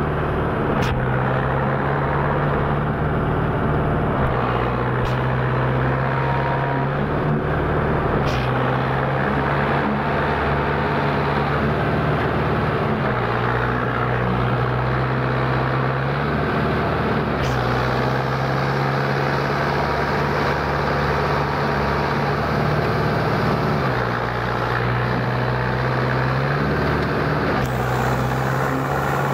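Compact four-wheel-drive tractor's engine running under load as the tractor churns, bogged in deep paddy-field mud. Its note steps back and forth between two steady pitches every few seconds.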